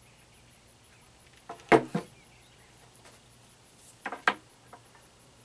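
Short knocks and clunks of a handheld electric jigsaw being handled and set down on a plywood board: a group of three about one and a half seconds in, the loudest, and another group of three about four seconds in.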